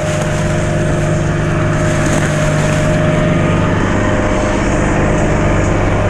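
Engine of a heavy utility bucket truck idling steadily, heard with wind and tyre rumble from a mountain bike rolling past; the engine hum weakens a little about halfway through.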